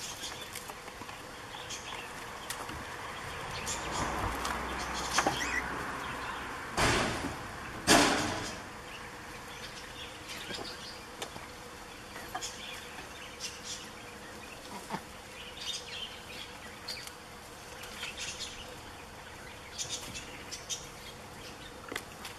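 Goat kid's hooves tapping and clattering on a wooden log and slatted bench: scattered light taps, with two loud thumps about seven and eight seconds in.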